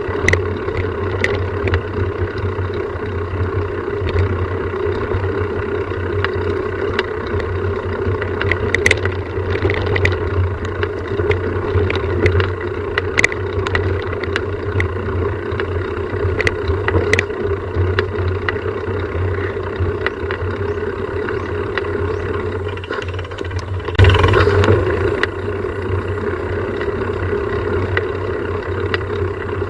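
A vehicle running steadily, giving a constant low drone, with scattered light clicks and a brief louder rush of noise about 24 seconds in.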